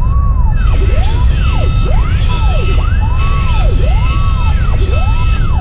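Overlapping siren wails rising and falling, part of the intro of a programmed yosakoi music track. Under them runs a steady heavy rumble, and a high tone pulses on and off about once a second.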